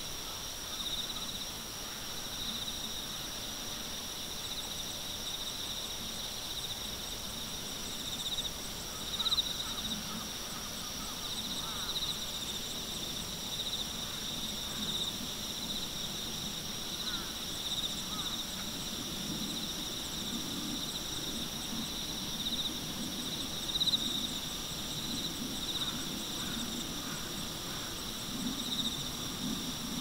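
Chorus of field insects singing: steady high-pitched trills, one pulsing evenly beneath a continuous higher one.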